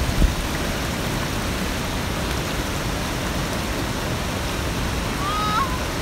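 Upper Kern River rushing over boulders and rapids, a steady wash of water noise. A brief high, wavering call cuts in about five seconds in.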